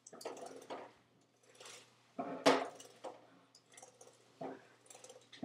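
Irregular taps, clicks and rustles of hands handling and tapping a small flat electronic device, the loudest knock about two and a half seconds in.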